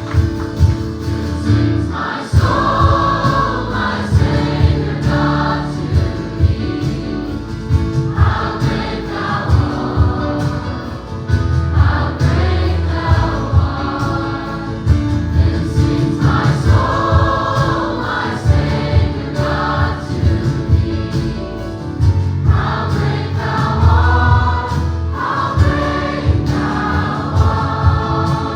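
Gospel choir singing over a live band, with sung phrases coming in repeated waves over a strong bass line.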